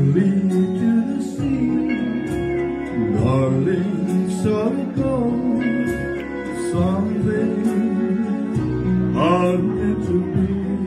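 A man singing into a handheld microphone over guitar accompaniment, holding long notes.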